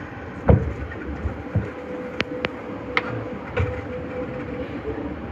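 Nagoya Municipal Subway 5050-series train running through the tunnel, with a steady rumble, a heavy thump about half a second in, and several sharp clicks a second or two later. A faint steady whine runs through the middle.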